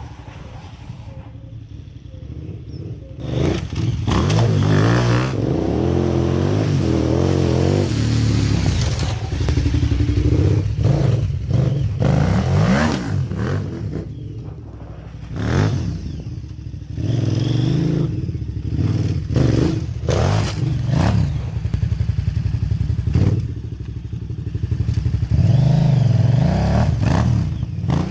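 KTM 990 Adventure's V-twin engine running low and steady, then from about three seconds in revved hard again and again, its pitch climbing and dropping with throttle and gear changes as the bike is ridden.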